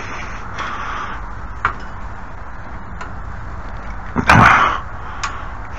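A few light clicks, then a louder knock or clatter lasting about half a second just past four seconds in, and a last click: a hinged fold-down shelf being worked while it binds on one side.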